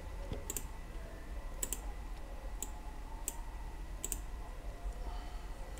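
Computer mouse clicking: about eight short, sharp clicks spread over several seconds, some in quick pairs, over a low steady hum.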